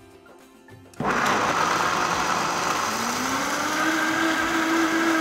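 A Vitamix Professional Series 750 blender starts about a second in and blends soaked cashews with water into a cream. A few seconds in its motor speeds up, the pitch rising, then it runs steady and loud.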